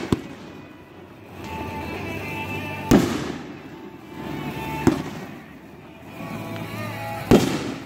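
Aerial fireworks bursting: about four sharp booms roughly two seconds apart, each trailing off in an echo, the loudest about three seconds in and near the end.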